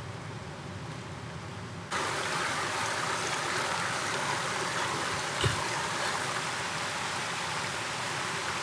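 Water of a small river running over stones, a steady rushing that starts abruptly about two seconds in after a low rumble. There is a single short thump about five and a half seconds in.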